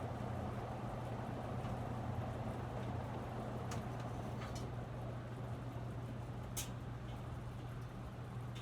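Crompton Greaves Encon High Breeze ceiling fan spinning down after being switched off. Its four wooden blades keep up an even rush of air that slowly fades, over a low steady hum. A few faint clicks come in the middle.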